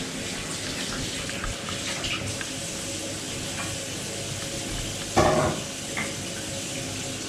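Water running steadily from a tap, with one short, louder sound about five seconds in.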